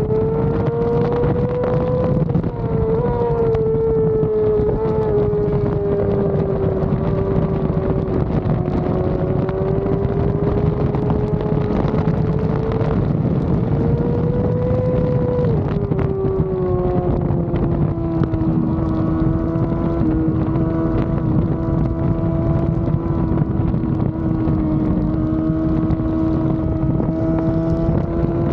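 Yamaha R6 inline-four engine running at high revs under racing load, heard from on board with wind rush over the microphone. Its pitch drifts with the throttle, drops about halfway through and holds lower, then climbs again near the end.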